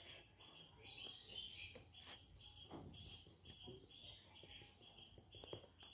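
Near silence: faint high chirps repeating a couple of times a second, with a few faint scratches of a graphite pencil shading on sketchbook paper.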